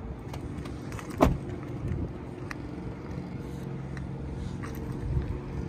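Audi S8's 5.2-litre V10 idling steadily, with a single sharp thump about a second in.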